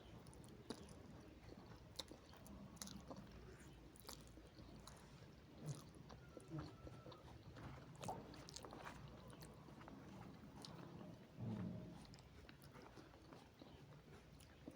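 Faint chewing and mouth noises of people eating noodles, with scattered small clicks and a short low thump late on.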